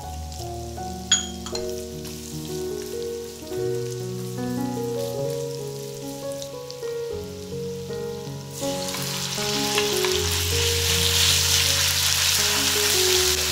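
Sliced ginger and garlic sizzling lightly in oil in a nonstick wok as a wooden spatula stirs them, with one sharp click about a second in. About eight and a half seconds in, marinated beef goes into the hot oil and a much louder, steady sizzle takes over. Background music plays throughout.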